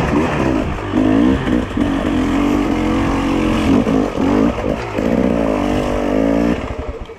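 Husqvarna TE300i two-stroke single-cylinder enduro motorcycle ridden slowly over rough trail, its engine note rising and falling with repeated bursts of throttle. The engine sound drops away about six and a half seconds in.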